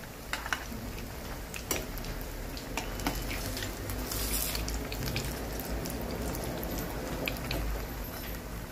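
Semolina-coated potato cutlets deep-frying in hot oil in a metal kadhai: a steady sizzle, with a few sharp clicks of a perforated metal skimmer against the pan as they are turned.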